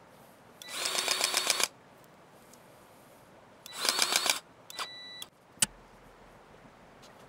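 Powered grease gun pumping grease into a dry, stiff door hinge, heard as two bursts of rapid clicking, the first about a second long and the second shorter. A short steady tone and one sharp click follow past the middle.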